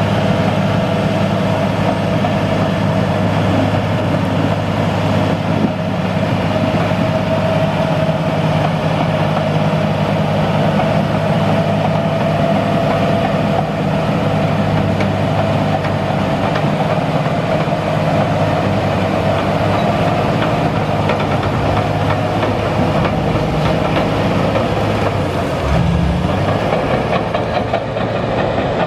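International Harvester TD-40B crawler dozer's diesel engine running steadily under load, with its steel tracks clanking as it pushes gravel and rock. The engine note shifts briefly near the end.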